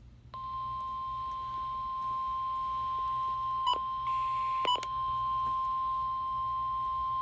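NOAA Weather Radio 1050 Hz warning alarm tone: one steady high beep held for about seven and a half seconds, signalling that a warning broadcast is about to follow. Two short clicks break into it near the middle.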